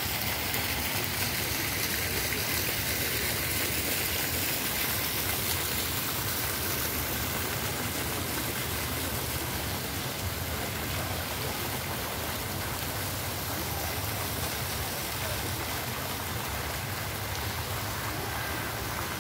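Fountain jet splashing into its stone basin: a steady rush of falling water, a little quieter in the second half.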